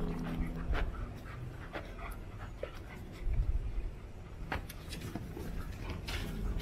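German Shepherd dogs panting as they play, with scattered light scuffs and clicks.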